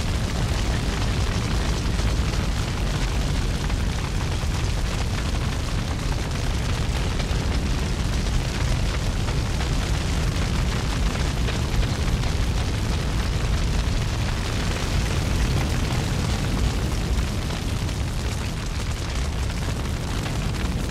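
A steady, continuous roaring rumble, heaviest in the low end, with no rhythm or breaks.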